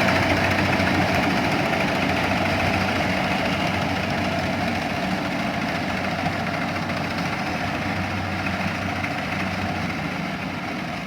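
An engine running steadily at an even speed, slowly getting quieter.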